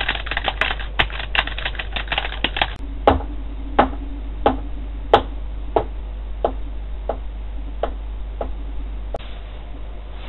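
Sharp clicks: a fast, dense clatter for the first three seconds or so, then single clicks at an even pace, about three every two seconds, stopping about nine seconds in.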